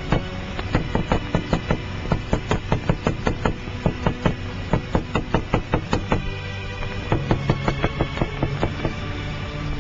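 A small hammer tapping rapidly on a hard surface, about four knocks a second, stopping for a moment after about six seconds and then starting again, with background music.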